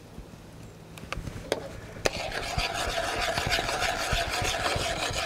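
A few sharp clicks of metal utensils on a steel pan, then from about two seconds in a metal spatula stirring a creamy sauce, scraping steadily and rapidly across the bottom of the pan.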